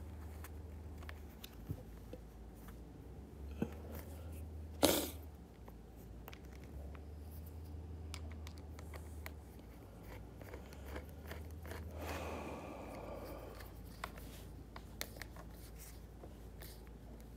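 Hands working the plastic parts and screws of a snowboard binding strap: scattered small clicks and rustles, one sharper click about five seconds in and a brief rasping scrape around twelve seconds, over a low steady hum.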